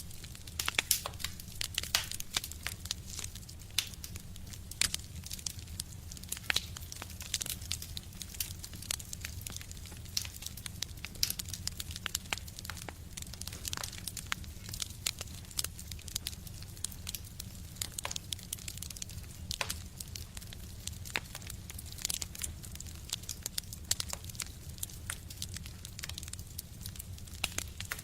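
Wood fire burning in a stove: irregular sharp crackles and pops over a steady low rumble.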